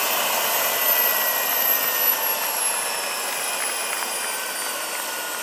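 Turbine engine of a large-scale RC Eurocopter EC-120 B Colibri model helicopter winding down on the ground. A high whine slowly falls in pitch over a steady rushing noise, and the sound grows a little quieter after a couple of seconds.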